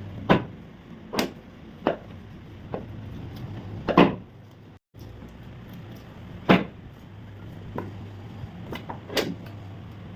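Chiropractic speeder board's drop piece clacking down under thrusts during a knee adjustment: a series of sharp, irregularly spaced clacks, about six loud ones with fainter knocks between, over a low steady hum.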